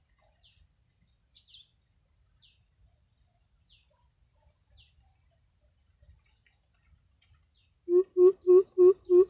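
Steady high insect drone with a few faint, thin, falling bird chirps. About eight seconds in, a greater coucal's deep hooting call begins: loud, evenly spaced hoots, about three a second.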